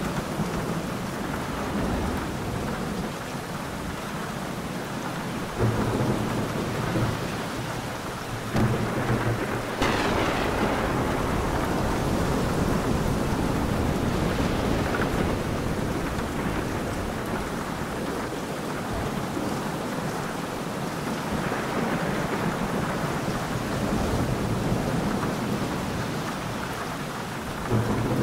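Thunderstorm: steady rain with rumbles of thunder, and a sharp thunderclap about ten seconds in that rolls on for several seconds.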